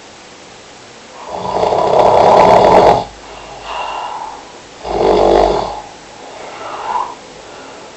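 A person snoring: two long, loud snores, one starting a little over a second in and one about five seconds in, each followed by a quieter breath out.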